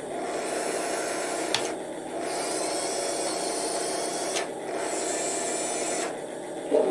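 Small electric motors and gearboxes of an RC model tank whirring in runs of about two seconds, each broken by a short dip, with a click about one and a half seconds in.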